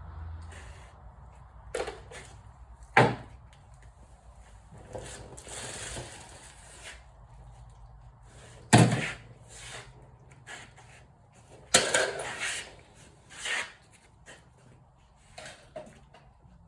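Knocks and clunks of heavy objects being moved and set down on a workbench, with shuffling in between: a handful of separate impacts, the loudest about nine seconds in and several more close together around twelve to fourteen seconds.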